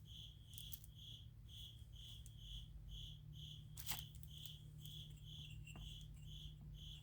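Faint cricket chirping steadily, about two short chirps a second, with one soft click about four seconds in.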